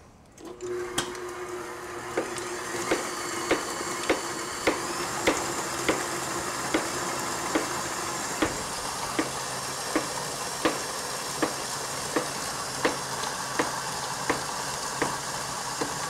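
Electric stand mixer running steadily as it beats a block of cream cheese, switching on about half a second in. Over it, a knife taps on a plastic cutting board about once every two-thirds of a second as bananas are sliced.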